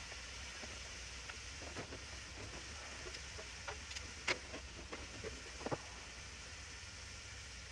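Ribeye steaks sizzling on a Blackstone flat-top griddle, a steady hiss over a low hum, with a few scattered sharp clicks and pops, the loudest about four seconds in.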